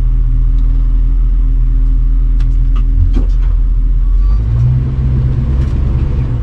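Class A motorhome's engine and drivetrain rumbling in the cab while driving slowly. A steady low drone grows louder about four and a half seconds in, with a few light clicks along the way.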